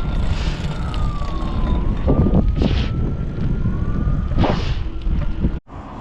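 Emergency-vehicle siren wailing slowly up and down over a steady low rumble, with a few short hissing bursts; it all cuts off abruptly near the end.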